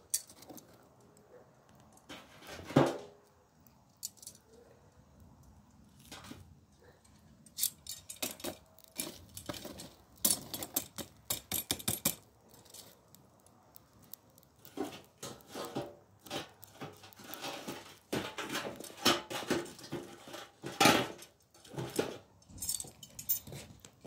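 Metal tongs raking and poking through charcoal embers in a steel fire tray: irregular clinks and scraping clatter of coals against metal, in several busy spells with pauses between.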